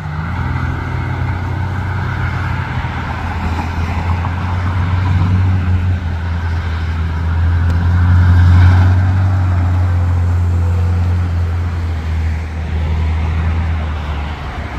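Orion VII city bus engine pulling past, a loud low drone that rises in pitch near the start and again about five seconds in, loudest about eight and a half seconds in as the bus goes by. Other cars passing on the road add tyre noise.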